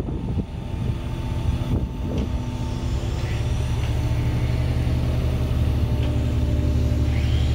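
KAMAZ 65117 truck's diesel engine running steadily, powering the crane-manipulator's hydraulics: a steady low hum that grows slightly louder toward the end.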